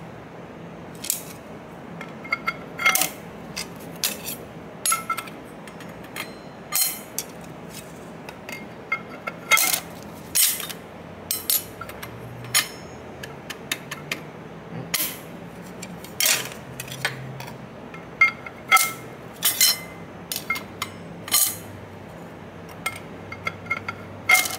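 Steel and brass clutch plates of a Twin Disc MG509 marine gear clinking as they are slid one by one onto the splined hub of the forward clutch pack: a string of irregular metallic clinks over a faint steady low hum.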